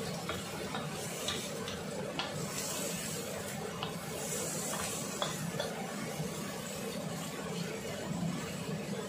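Sliced vegetables sizzling in a wok while a wooden spatula stirs and tosses them, with scattered light knocks and scrapes of the spatula on the pan.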